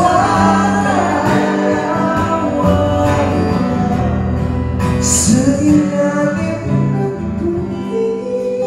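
Three male singers harmonizing into microphones over an acoustic guitar. Near the end one voice carries on alone with the guitar.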